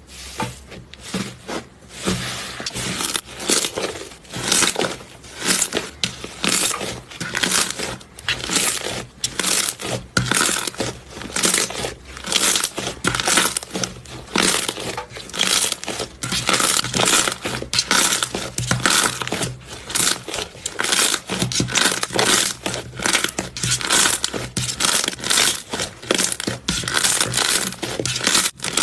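Slime being squeezed and pressed, giving a dense run of short crackling, crunching pops, several a second.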